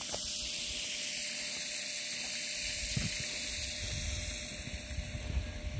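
Pumped water jetting from the end of a 1-inch discharge hose and splashing onto pavement, a steady hiss that eases off near the end. From about halfway in, wind rumbles on the microphone.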